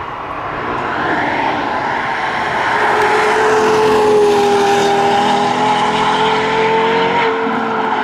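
Lexus LFA NBR Edition's 4.8-litre V10 at high revs as the car drives past. The note swells to its loudest about halfway through, holds a steady pitch, then eases off slightly near the end.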